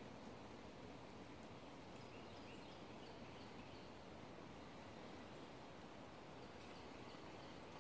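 Near silence: faint woodland ambience with a few faint, short high chirps in the first half and a couple of faint clicks near the end.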